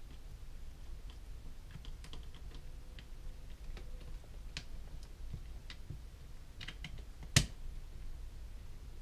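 Small scattered clicks and taps from handling an airsoft gearbox shell and its internal parts while pressing the shell halves together by hand, with one sharp knock about seven seconds in.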